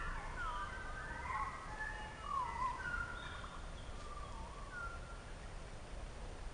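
Songbirds singing: warbling, gliding phrases that overlap thickly for the first three seconds, then thin out to a few short calls. A steady low rumble lies underneath.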